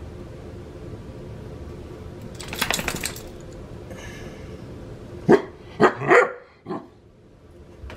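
A Great Dane barking, about four sharp barks in quick succession a little past halfway, after a brief burst of rustling.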